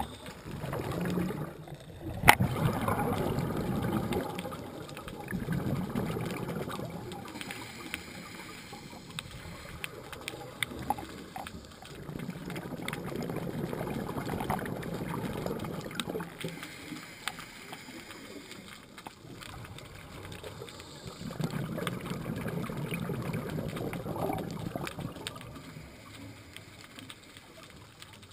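Scuba diver's exhaled bubbles rumbling past an underwater camera in slow swells every several seconds, one breath after another, with a single sharp click about two seconds in.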